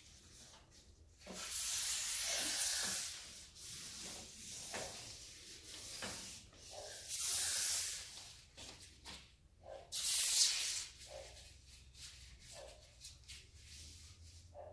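An aerosol can of lubricant spraying in three hissing bursts, a second or more each, the longest near the start. Quieter rubbing and handling noises come between the bursts.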